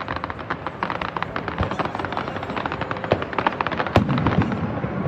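Fireworks going off: a rapid, dense crackle of many small pops, with a louder single bang about four seconds in.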